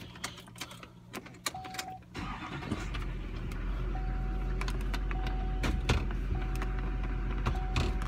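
Farm truck engine heard from inside the cab: faint at first with a few clicks, then about two seconds in the engine noise rises to a steady run as the truck is put to backing up. A short single-pitch chime sounds on and off over it.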